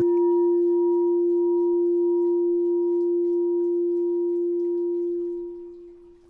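A meditation bell rings out after being struck. One clear, steady, fairly low tone with fainter higher overtones wavers slightly as it sustains, then fades away about five to six seconds in.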